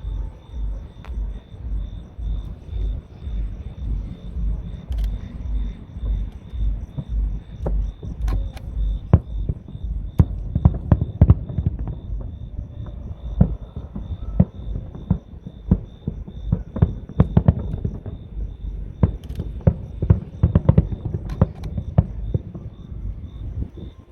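Fireworks going off: a few scattered bangs, then a dense run of bangs and crackles from about ten seconds in until near the end. Underneath runs a steady low pulsing, about twice a second.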